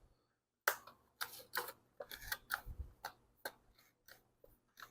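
Irregular clicks and light knocks of small parts being handled as a replacement recoil starter and its pinned spacer are fitted onto a two-stroke posthole digger engine.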